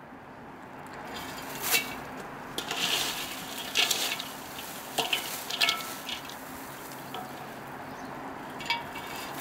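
Hands mixing dried mistletoe sprigs with sugar in a stainless steel bowl: a crackly rustle of dry leaves and stems, with irregular louder crunches as handfuls are lifted and dropped.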